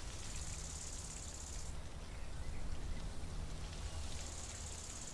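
Steady background noise with a low hum and a high hiss that comes and goes twice.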